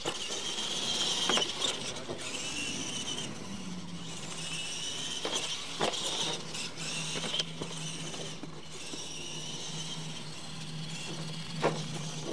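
Radio-controlled monster trucks racing over a dirt course, their electric motors and gears whining, rising and falling with the throttle, with a few sharp thumps as they land off jumps.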